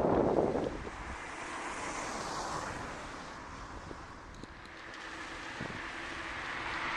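Wind buffeting the microphone of a camera carried on a moving bicycle: a loud low gust in the first second, then a steady rush of air.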